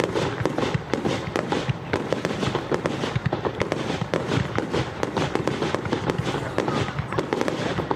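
Fireworks going off in a dense, continuous barrage of bangs and crackling reports, many a second with no break.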